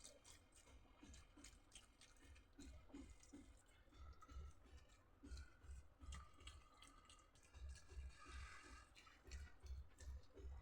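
Faint eating sounds: small wet clicks of the mouth and soft chewing thuds in an uneven rhythm.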